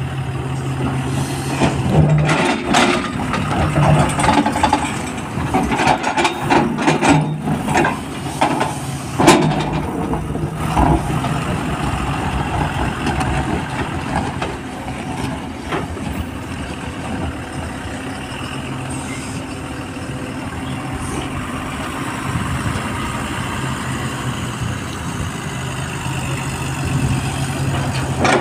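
Komatsu PC300 hydraulic excavator's diesel engine running under load while its bucket digs into broken rock and gravel. Through roughly the first ten seconds there are repeated scrapes, knocks and the clatter of stones. After that the engine runs on more steadily.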